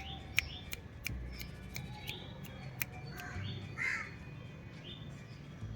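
Birds chirping again and again in short, high, falling notes, mixed with sharp clicks, and a lower call about four seconds in.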